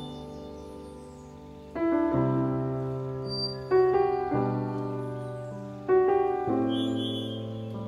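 Background music of slow piano chords: a new chord is struck about every two seconds and left to ring and fade.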